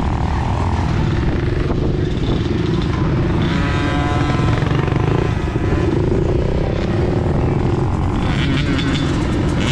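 Honda 70 small motorcycle's single-cylinder four-stroke engine running steadily, its note shifting briefly around the middle.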